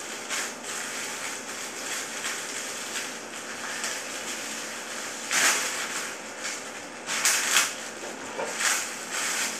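Clear plastic bag crinkling and rustling as it is handled and pulled open by hand, in irregular surges, the loudest about halfway through and again a couple of seconds later.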